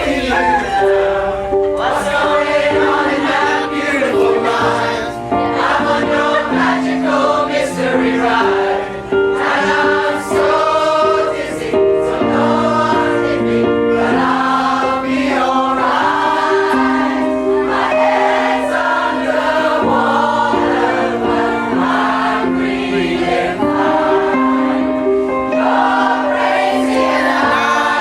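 A pop choir singing a song in harmony, several voice parts holding notes together.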